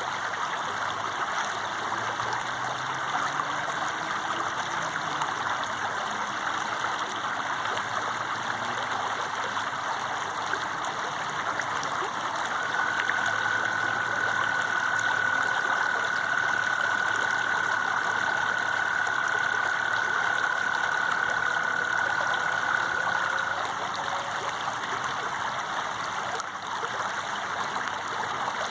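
Running water, a steady rushing wash with no break. About halfway through, a steady high tone comes in, holds for roughly ten seconds, then stops.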